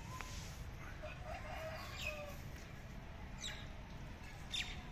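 Chickens clucking with a few short, low calls, then several brief high chirps that drop in pitch.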